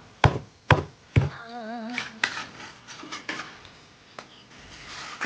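Kitchen knife chopping on a cutting board: three sharp strokes about half a second apart in the first second or so. Then comes a brief wavering voice-like tone and light clattering of kitchen utensils.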